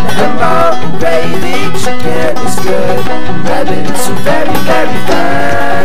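Clawhammer banjo playing an old-time tune in a steady, driving frailing rhythm, with a wavering melody line sounding above the picking.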